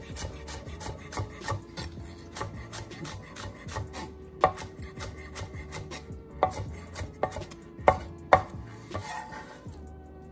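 Chef's knife chopping green scallions on a wooden cutting board: a rapid run of knife knocks on the board, a few of them louder, thinning out near the end.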